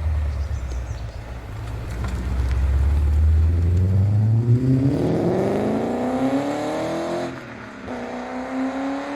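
Car engine accelerating hard: a loud low rumble whose pitch climbs steadily through the revs, drops suddenly about seven seconds in, then climbs again.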